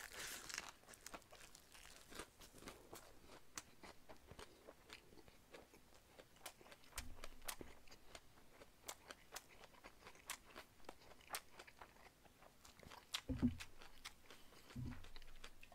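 Close-miked chewing of a lettuce wrap of stir-fried sundae and pork intestines: faint mouth sounds made of many small sharp clicks. A couple of dull knocks near the end.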